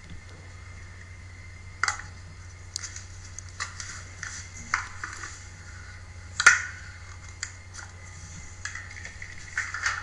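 A stainless-steel mixer-grinder jar handled and fitted onto its Philips mixer-grinder base: scattered metallic clinks and knocks, the loudest about six and a half seconds in. The grinder motor is not running.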